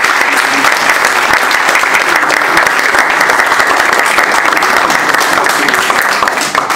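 A roomful of people applauding: dense, steady clapping that begins to thin near the end.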